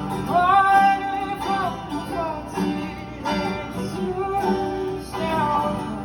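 Live acoustic band playing between vocal lines: strummed acoustic guitar chords in a steady beat, with a sliding melody line over them twice.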